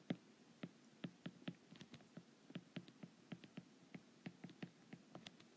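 Faint, irregular clicks and taps of a stylus tip on a tablet's glass screen during handwriting, about three or four a second.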